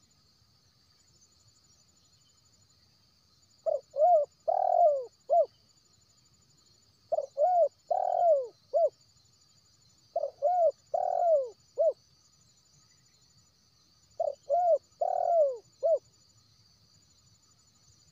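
A spotted dove cooing its song four times, each phrase a few short coos around one longer drawn-out coo, with pauses of a couple of seconds between phrases.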